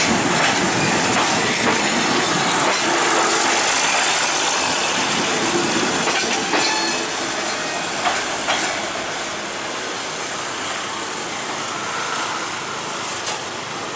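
A diesel railcar train passing at close range, its wheels running over the rails with a few sharp clicks. The sound gradually dies away as the last car moves off.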